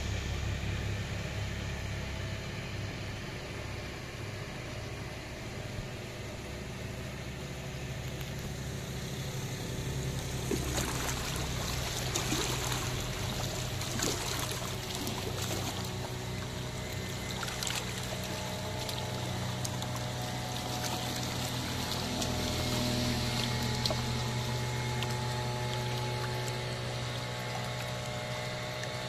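A boat's motor running at a steady hum, with water splashing and trickling alongside from about ten seconds in.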